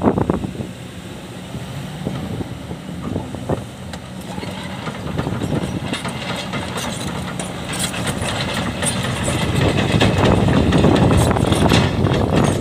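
Kobelco hydraulic excavator's diesel engine running under working load as the machine swings and lowers its boom and bucket, growing louder through the second half. Scattered clanks and rattles of metal and stones sound over the engine in the second half.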